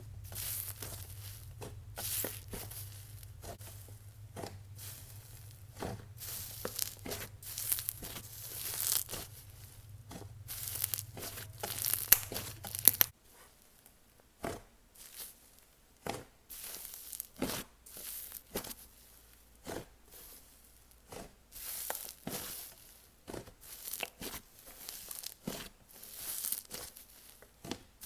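Slime being stretched, folded and squished by hand: a dense run of sticky crackles, pops and fizzy sizzles. About 13 seconds in, a low background hum drops away and the sounds become sparser, separate pops and squelches.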